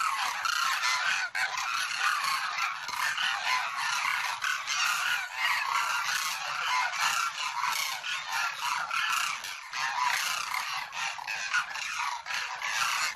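A flock of cranes (koonj) calling without a break, many birds' calls overlapping into a dense chorus.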